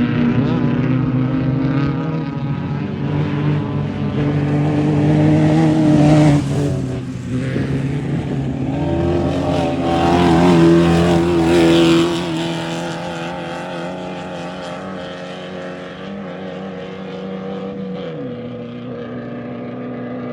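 Off-road race vehicle engines running as they pass close by, loudest about six seconds in and again from about ten to twelve seconds in. Afterwards a quieter, steadier engine sound continues and drops in pitch near the end.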